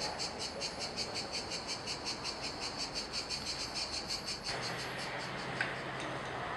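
Insects chirping in a quick, even rhythm of about four or five high pulses a second. About four and a half seconds in, the chirping cuts off and gives way to a steady background noise with a low hum.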